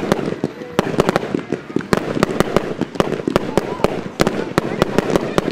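Fireworks finale barrage: aerial shells bursting in rapid, sharp bangs, about three or four a second, over a continuous hiss and crackle.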